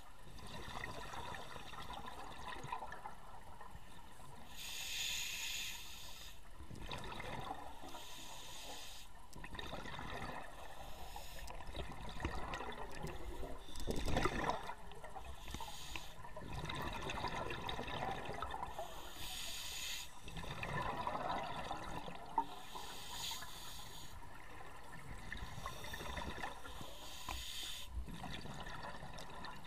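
A scuba diver's regulator heard underwater through the camera's waterproof housing. Every few seconds a hiss of inhalation is followed by the bubbling of exhaled air. A dull knock sounds against the housing about halfway through, and a short click comes later.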